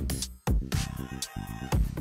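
Electronic background music with deep bass hits.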